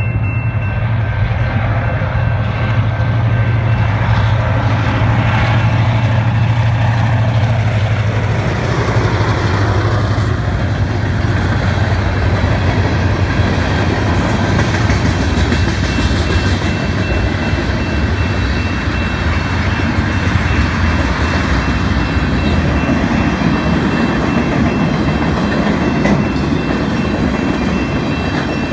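CN freight train's cars rolling through a level crossing, a steady loud rumble of wheels on rail, with the crossing signal's bell ringing throughout. A low drone under it fades about eight seconds in.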